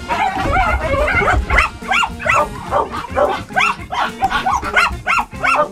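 Dogs barking and yelping in a quick, unbroken run, about two or three high calls a second.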